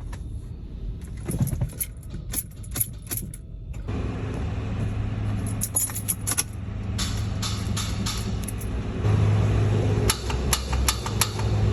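Keys rattling and clicking for about four seconds, then a steady low vehicle hum that grows louder about nine seconds in, with scattered clicks over it.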